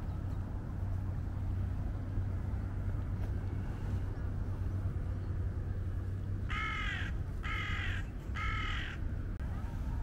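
A bird calling three times in quick succession, each call about half a second long, over a steady low rumble.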